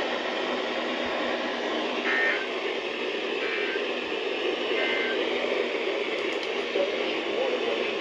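Steady radio static: a dense hiss, with a few faint short tones about two, three and a half and five seconds in.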